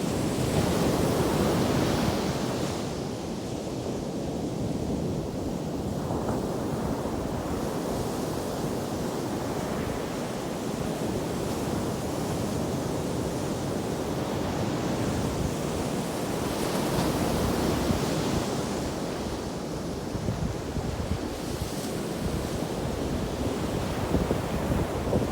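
Ocean surf breaking on a beach: a continuous rush of waves that swells louder about a second in and again about two-thirds of the way through.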